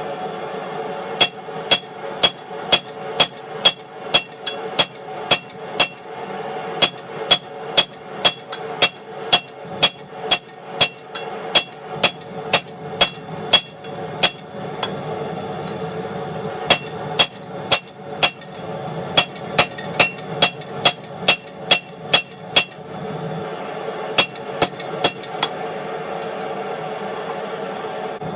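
Hammer blows on hot railway-track steel being forged, about two to three strikes a second in runs broken by short pauses, each blow with a high metallic ring. A steady drone runs underneath.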